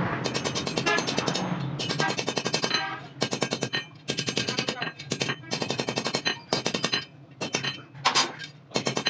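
Hand hammer striking a steel bar in quick, ringing blows as the bar is bent around a heavy steel bending jig, with a few short pauses between runs of strikes.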